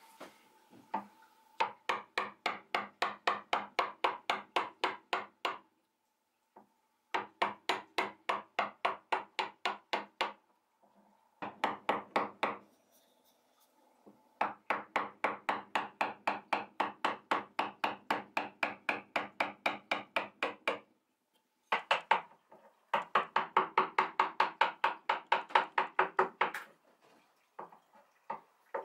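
Round wooden mallet striking the handle of a gouge, driving it into an oak block to hollow out a spoon bowl. The blows come in quick even runs of about three or four a second, broken by short pauses.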